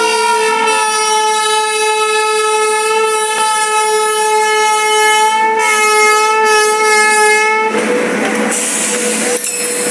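An Indian Railways WAP-5 electric locomotive's horn sounding one long, loud, steady blast that stops about three-quarters of the way through. After it, the noise of the Gatimaan Express coaches rolling past.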